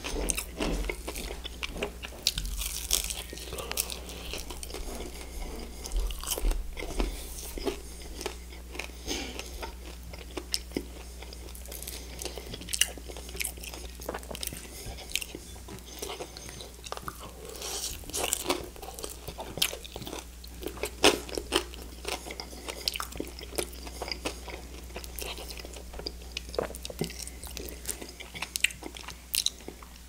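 Close-miked crunching and chewing of crispy fried chicken wings: irregular sharp crackles of the skin breaking as he bites and chews.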